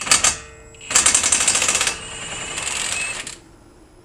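Impact wrench hammering on a 17mm brake caliper bolt: a brief burst, then about a second of loud rapid hammering, then a shorter, weaker burst.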